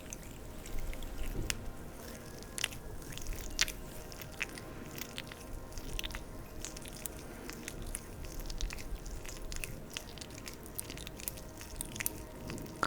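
Oil being worked between hands and over skin, making irregular sticky, wet clicking and crackling sounds.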